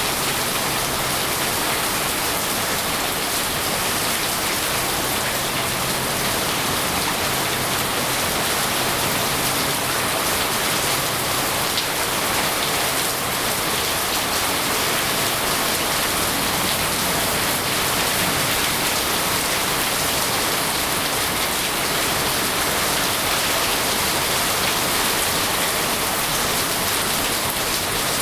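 Steady rain, an even hiss without a break.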